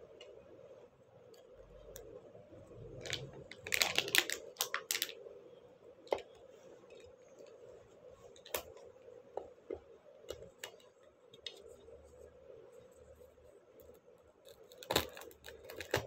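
Plastic snack packaging handled: a quick run of crinkles and clicks about four seconds in, then scattered single clicks and taps, over a faint steady hum.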